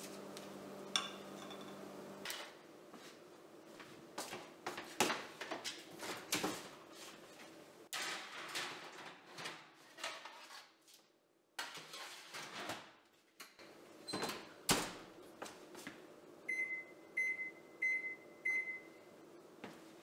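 Metal baking sheets clattering onto oven racks and the oven door knocking shut, followed near the end by four short beeps at one pitch from the oven's control panel as it is set.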